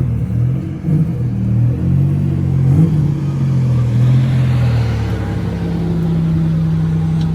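Nissan Z31's turbocharged VG V6 engine being revved, its pitch rising and falling for the first few seconds, then settling to a steady run. The car is being tuned for a lean condition under throttle.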